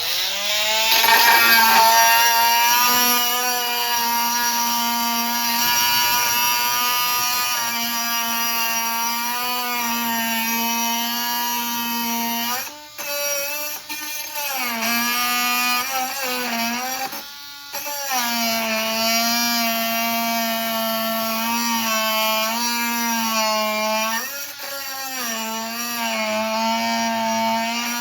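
Milwaukee M12 oscillating multi-tool running at speed 12 with a new blade, a steady buzzing tone whose pitch sags and wavers as the blade is loaded, typical of cutting through a screw. It stops briefly about 13 s in and again around 17 s, with another dip near 24 s.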